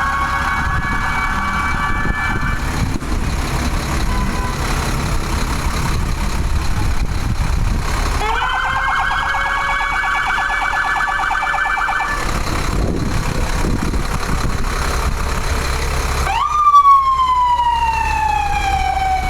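Fire truck siren sounded in bursts: a steady warbling tone at the start, another from about eight to twelve seconds in, and near the end a quick rise followed by a slow falling wail. A low engine rumble runs underneath.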